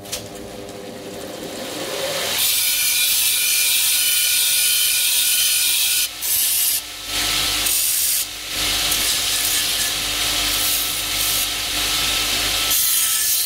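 Bench belt sander (linisher) with a 40-grit belt coming up to speed, then grinding the edge of a pressed sheet-metal panel from about two seconds in: a loud, steady rasping hiss of abrasive on metal, broken by three brief lifts around the middle. The grinding straightens the panel's edge and takes out its press marks.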